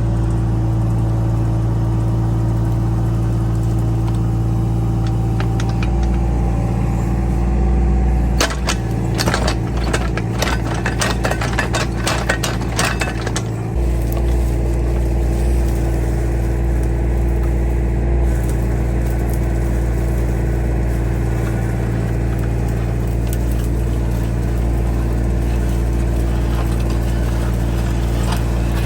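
A vehicle engine running steadily with a low drone. From about eight to thirteen seconds in, a run of rattling and clattering rides over it.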